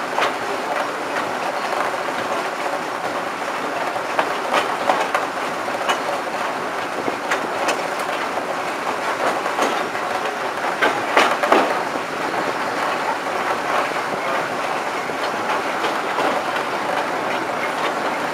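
A train running along the track: a steady rushing rumble with irregular wheel clicks over rail joints, a louder cluster of clicks about eleven seconds in, heard from the cab of a Class 05 diesel shunter hauling coaches.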